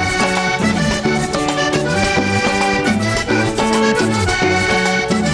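Vallenato band playing an instrumental passage between verses: the diatonic accordion carries the melody over bass and hand percussion.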